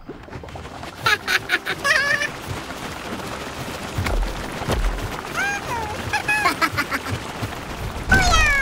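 Cartoon sound effects of a small homemade plane's leaf propeller whirring steadily as it rolls and takes off, with two short bursts of cartoon character gibberish voices, about a second in and again around five to six seconds in.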